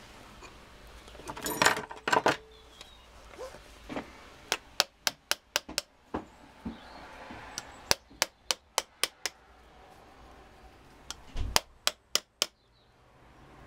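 Mallet tapping on a Bosch starter motor's housing to seat its parts during reassembly. There are a couple of louder knocks about two seconds in, then three runs of quick sharp taps at about four a second.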